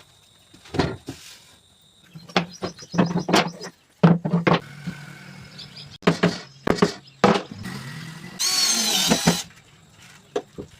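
Irregular knocks and taps on wood from workshop work, with a steady low hum under some of them. Near the end comes a brief high, wavering squeal lasting about a second.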